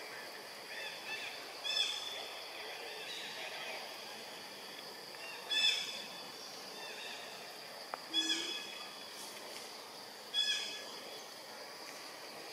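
Short, high animal calls, each with several stacked pitches, repeated four times a couple of seconds apart over a steady high, thin whine and faint outdoor background.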